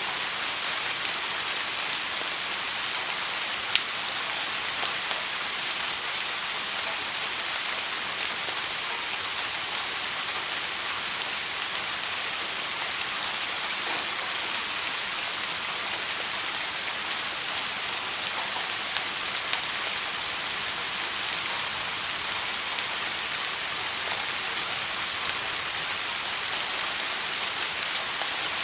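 Steady soft rainfall: an even hiss of rain on a surface, with a few individual drops ticking out now and then.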